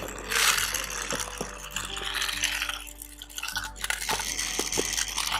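Toy trains clinking and rattling as they are handled, with many small hard knocks, over quiet background music.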